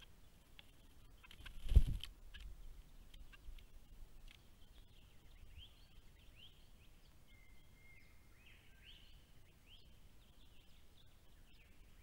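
Small birds chirping: many short rising chirps with a brief steady whistled note, over quiet outdoor background. A single sudden low thump about two seconds in is the loudest sound.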